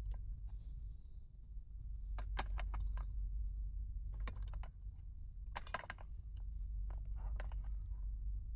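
Scattered light clinks and rattles of small hard objects being handled, in short clusters, over a steady low rumble.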